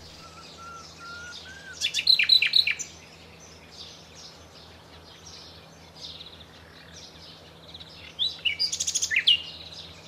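Common nightingale singing: a run of soft, slightly rising whistles, then loud, rapid phrases of sharp down-slurred notes about two seconds in, quieter varied warbling, and another loud fast trill near the end.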